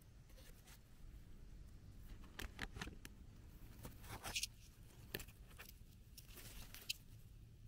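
Leaves and twigs of a berry bush rustling as small red berries are picked by hand, with several brief sharp crackles in the middle.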